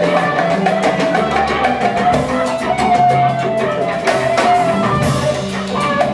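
Live band music: upright bass and drum kit with cymbals keeping a steady groove under a long held melody line.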